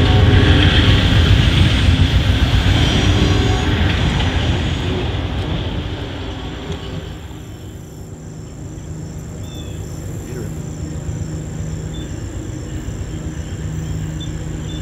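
Rumble of a passenger train receding down the track, fading away over about seven seconds. Then, after a cut, quiet outdoor air with a faint steady hum as another train approaches from far off.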